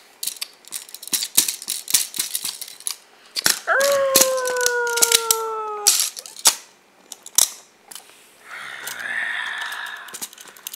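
Magna-Tiles magnetic plastic tiles and animal pieces clicking and clacking together as they are handled. About four seconds in, a voice makes one long hoot that jumps up and then slides slowly down for about two seconds, and a breathy hiss follows in the second half.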